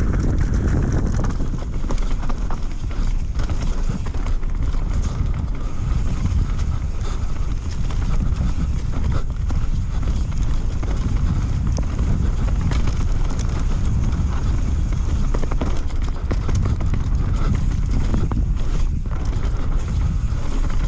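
Mountain bike descending a dirt singletrack at speed: continuous rattling and clattering of the chain and frame over roots and bumps, with tyres crunching through dirt and leaves over a steady low rumble.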